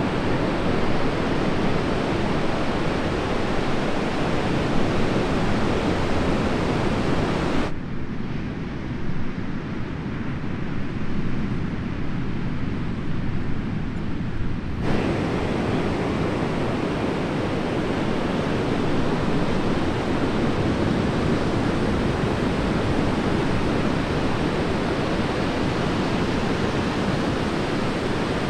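Large hurricane-swell surf breaking and washing in: a steady rushing noise of whitewater. From about 8 to 15 seconds in it turns muffled, its hiss cut off.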